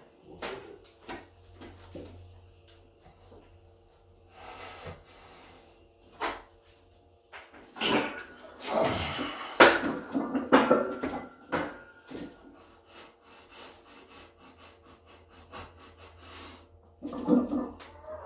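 Heavy, forceful breathing of a lifter bracing under a loaded cambered squat bar, with scattered clicks and knocks from the bar and its iron plates as it is lifted out of the rack. The breathing and knocking are loudest in the middle, and another burst of strained breathing comes near the end as he goes down into the squat.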